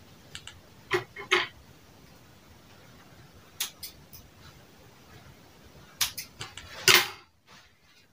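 Scattered short clicks and knocks of tools and work being handled at a tailor's table, in small clusters, the loudest just before the end.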